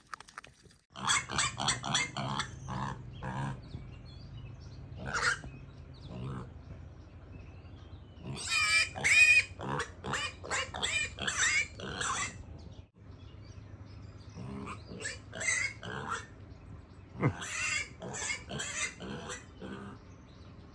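Black piglet grunting: quick runs of short grunts in three bursts, with pauses between.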